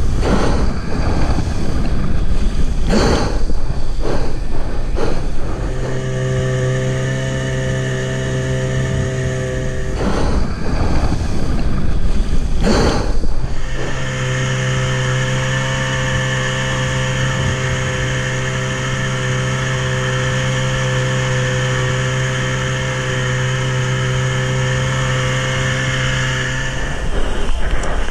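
Outboard motor on a jon boat running at steady throttle, an even, unchanging drone. During the first few seconds and again about ten seconds in, rushing water spray and wind on the microphone cover it.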